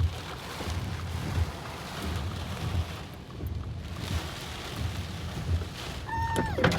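Car driving through a hurricane downpour, heard from inside: a steady rush of wind and rain over a low rumble from the car that swells and fades about once a second. Just after six seconds a brief tone holds and then slides down in pitch.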